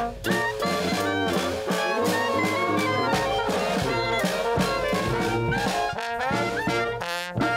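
A small marching brass band playing a lively tune: trumpets and trombone carry the melody over clarinet, with sousaphone bass and bass drum underneath. Near the end the band plays a quick upward run.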